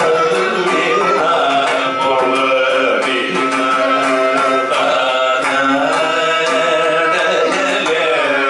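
Carnatic classical vocal music: two male voices singing together with sliding, ornamented phrases over a steady tanpura drone, accompanied by violin and by mridangam and khanjira percussion.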